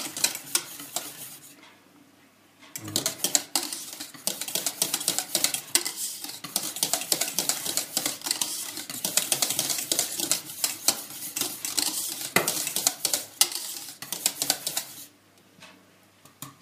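Wire whisk rattling rapidly against the sides and bottom of a stainless steel saucepan as thick crème pâtissière is stirred nonstop over low heat so it doesn't catch. The whisking pauses briefly about two seconds in, then runs on steadily and stops about a second before the end.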